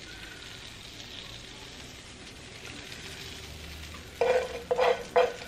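Butter and chili-oil sauce sizzling gently in a frying pan as a metal spoon stirs it. About four seconds in, the spoon scrapes loudly across the pan several times in quick succession.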